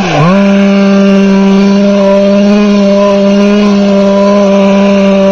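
Small two-stroke gasoline engine of a gas-powered RC car running hard and steady while the car spins doughnuts; the revs dip sharply and climb back right at the start.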